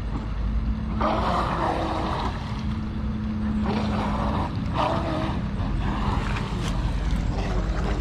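Tenshock-powered F1 electric RC speedboat running on the water, its motor and hull noise coming and going in bursts of about a second, over a steady low hum and wind rumble on the microphone.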